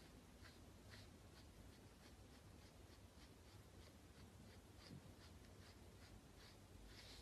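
Near silence: faint room tone with soft, evenly spaced scratchy ticks, about two a second.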